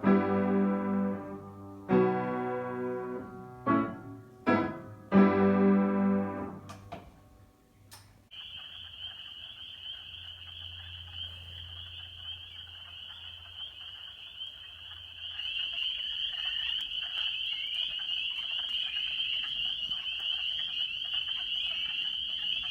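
Piano chords play for the first eight seconds or so and end. Then a dense chorus of spring peepers sets in, a steady high-pitched peeping that grows fuller about halfway through.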